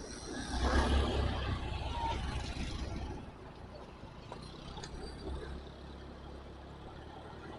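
A motor vehicle passing close by: engine rumble and road noise swell about half a second in, peak around a second, and fade by about three seconds, leaving a quieter steady rumble.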